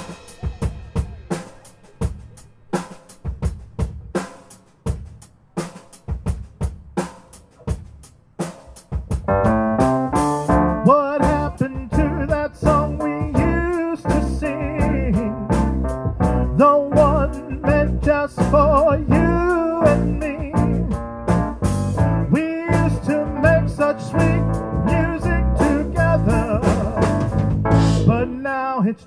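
Live band playing a song: a drum-kit groove on its own for about nine seconds, then electric guitars, bass and trumpet come in with the full band.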